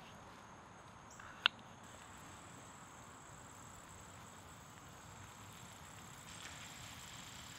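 A knife blade clicking down through a raw potato onto a wooden cutting board, once about a second and a half in. A steady high-pitched insect drone runs underneath from about a second in, and near the end a faint sizzle starts from the skillet of beef mince over the campfire.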